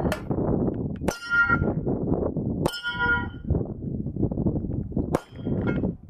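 Sig Sauer P220 .45 ACP pistol fired about five times at a steel spinning-pinwheel target. Hits ring the steel plates with a bright metallic clang, two of them ringing on clearly, over a steady rumble of wind on the microphone.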